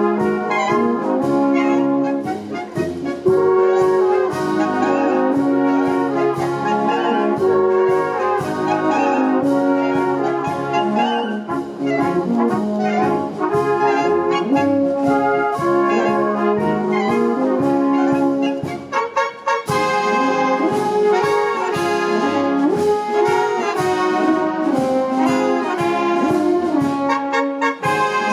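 Brass music with a steady beat: held trumpet- and trombone-like notes over a regular rhythm, with a brief break about two-thirds of the way in before the tune carries on.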